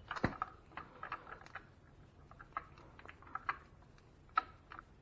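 Faint, scattered metal clicks and taps, with one sharper knock about a quarter second in, as the spring-loaded oil screen cap on a 1984 Honda ATC 200S engine is pressed in and twisted into place by hand.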